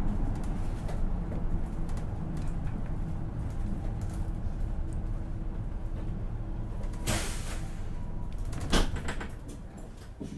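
Inside a Hino Blue Ribbon City KL-HU2PREA city bus: the steady rumble of the engine and running gear, then about seven seconds in a long hiss of air and a short, sharp burst of air about a second and a half later, after which the rumble fades.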